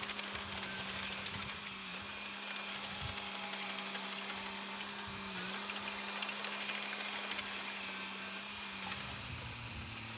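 Small bulldozer's diesel engine running at a steady pitch, dipping briefly twice, over a hiss with scattered clicks from the working machine. Near the end a second engine note rises in pitch.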